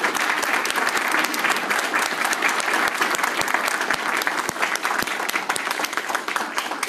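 A roomful of people applauding steadily, many hands clapping, in thanks to departing board members.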